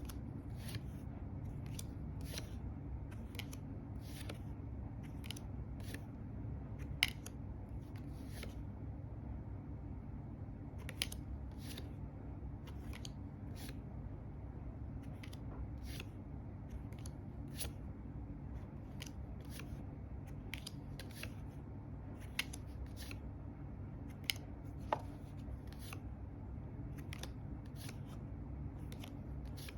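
Tarot cards being handled and turned over one at a time, giving a short crisp snap or slide about once a second, unevenly spaced, over a low steady room hum.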